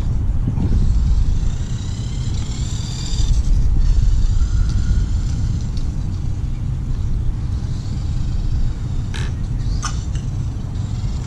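Wind buffeting the microphone, a steady low rumble. Over it, a faint high whine from the RC trike's small electric motor and gears rises in pitch about two to three seconds in, and two sharp clicks come near the end.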